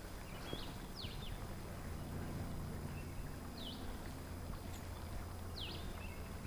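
A songbird giving a few short, quickly falling high chirps, about four in all, with a couple of brief steady whistled notes between them, over a faint steady low background hush.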